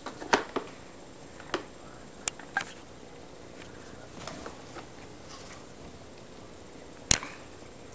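A Santa-shaped treat bucket knocking and clattering as kittens paw at it, push their heads inside and tip it over. The knocks are sharp and irregular, loudest about a third of a second in and again near the end, with fainter ticks and scrabbling in the middle.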